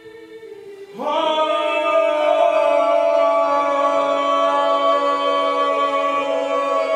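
An a cappella mixed choir sings a faint held chord, then about a second in the voices slide up together into a loud chord and hold it steadily for several seconds.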